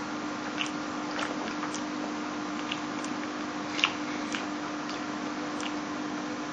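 A person chewing and eating black preserved duck eggs (century eggs): a few short wet mouth clicks and smacks, the sharpest a little past halfway, over a steady low hum and hiss.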